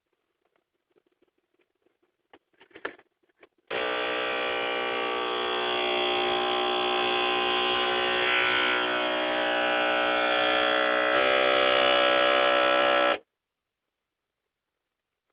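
Toyota Avalon's electric rear window sunshade motor running with a loud, steady buzzing whine for about nine seconds, shifting slightly in pitch near the end before it stops suddenly: the noise that this sunshade is known for. A few faint clicks come before it starts.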